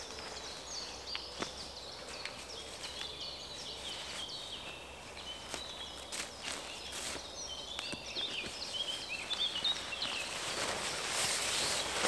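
Small birds chirping and trilling, with footsteps and scattered crackles in dry fallen leaves. Near the end a louder rustling builds as tent fabric is pulled off the tent to take it down.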